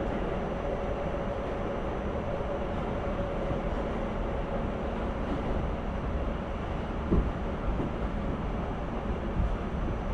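Inside a moving subway car: a steady low rumble, with a faint steady whine fading out in the first second and one sharp clunk about seven seconds in.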